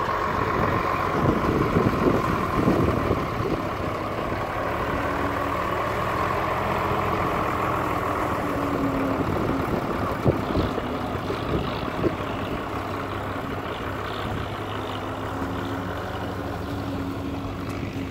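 International Harvester tractor engine running steadily under load as it pulls a tillage implement past, with wind buffeting the microphone in the first few seconds.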